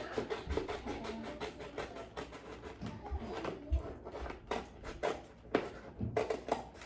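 Paper being handled and rustled, with irregular crinkling and a few light knocks against a table.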